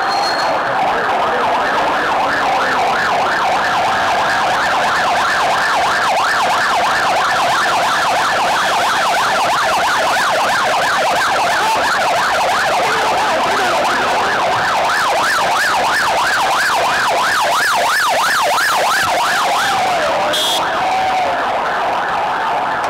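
Police vehicle siren in a fast yelp, its pitch sweeping up and down several times a second over a steadier lower tone.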